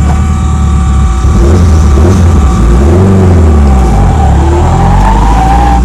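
Untuned engine of a high-horsepower Honda-swapped Toyota MR2 running, revving up and back down once about a second and a half in.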